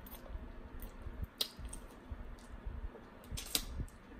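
Wet sucking, chewing and lip-smacking as a person eats a chicken foot with her fingers. Scattered sharp smacks, the strongest about a second and a half in and again around three and a half seconds.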